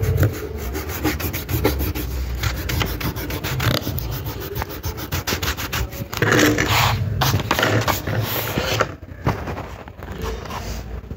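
Rapid back-and-forth rubbing on drawing paper, several strokes a second. It grows louder and rougher for a couple of seconds past the middle, then eases off.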